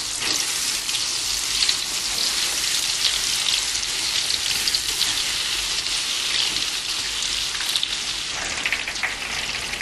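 Egg-and-flour-coated artichoke pieces frying in a pan of hot oil: a steady sizzle thick with fine crackling.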